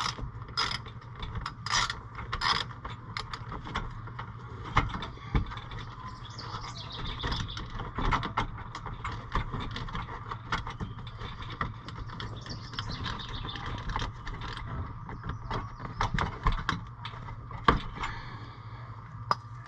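Ratchet wrench with an 8mm socket clicking as it turns out the small bolts of the cover over the oil filter, with irregular clicks and knocks of metal tools and parts.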